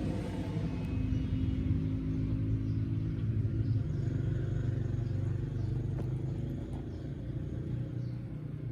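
A steady low rumble with a faint held hum, easing off a little in the last few seconds.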